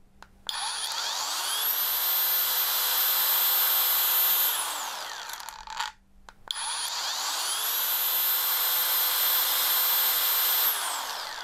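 Hanskonner brushless angle grinder (corded, 1.6 kW) switched on and off twice: each time the soft start brings the motor up over about a second with a rising whine, it runs steady for a few seconds, then winds down after switch-off. The reviewer heard an odd noise as it switched off, though he is not sure he didn't imagine it.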